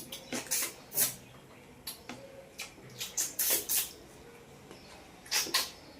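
Close mouth sounds of someone eating rice and fish curry: wet lip smacks and chewing, a string of short irregular smacks and clicks.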